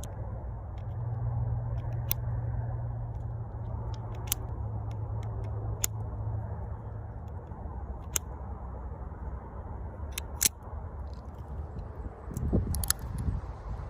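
Sharp single clicks from handling a British-contract Smith & Wesson .455 revolver, about one every two seconds, over a steady low rumble. A few dull thumps come near the end.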